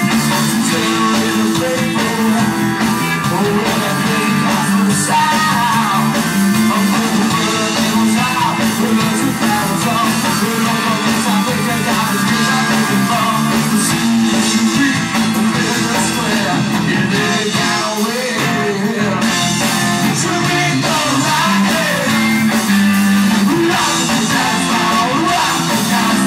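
Live rock band playing: electric guitars and drum kit with a lead singer.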